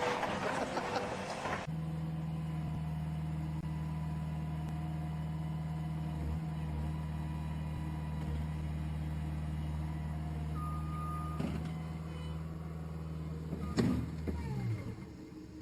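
A skid steer loader's engine running at a steady pitch after a couple of seconds of noisy rush. A short beep comes about ten and a half seconds in and a sharp knock near fourteen seconds, after which the engine's pitch falls away.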